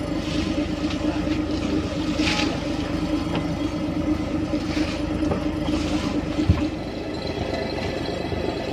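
A fishing boat's engine running steadily with a low hum, with several brief splashes of water and a single knock about six and a half seconds in.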